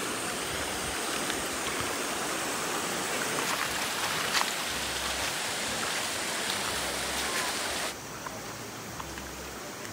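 Steady rushing of a flowing stream; about two seconds before the end it drops suddenly to a quieter hiss.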